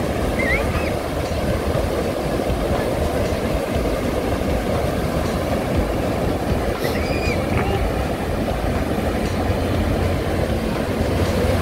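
Steady rush of surf breaking along a sandy beach, mixed with wind rumbling on the microphone.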